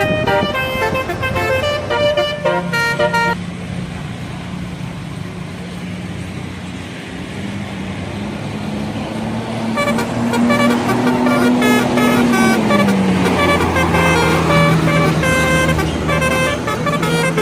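Bus telolet horn playing its tune in short, quick notes of changing pitch. It stops about three seconds in, leaving a low steady engine hum and road noise, then starts playing again about ten seconds in.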